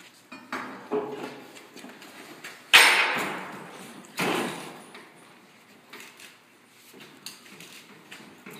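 Halligan bar clanking and scraping against the steel frame of a forcible-entry door prop as it is worked into the door gap to pry the door outward. There are a few knocks early on, then two loud sharp clanks about three and four seconds in, each trailing off over about a second, followed by lighter clicks.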